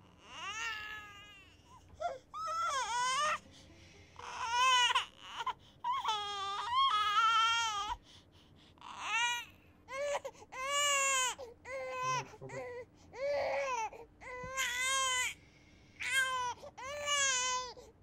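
Newborn baby crying: a string of about a dozen high, wavering wails, each up to about a second long, with short breaths between them.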